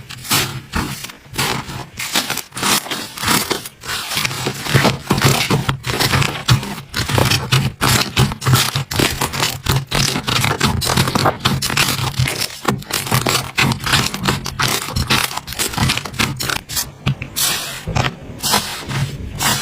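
Slime being squished and worked by hand, giving a dense, continuous run of crackles and small pops.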